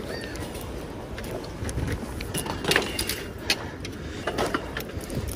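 Metal clanks and knocks from an old bicycle being hauled in and handled after being pulled up with a fishing magnet, the loudest a little under three seconds in, over steady low background noise.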